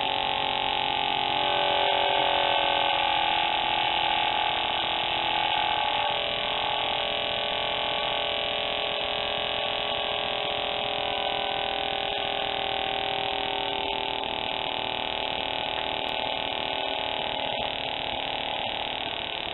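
Herkimer "OK" CO2 model motor running on a test stand, spinning a three-blade propeller with a steady whine. Its pitch lifts slightly a couple of seconds in and wavers around six seconds, then holds steady.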